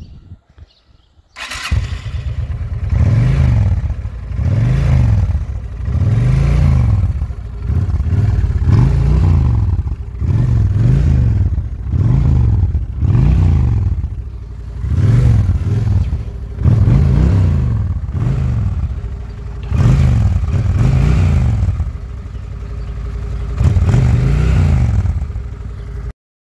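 Honda Shadow motorcycle's V-twin engine starting up about a second and a half in, then revved about a dozen times, each rev rising and falling back to idle roughly every two seconds. The sound cuts off abruptly near the end.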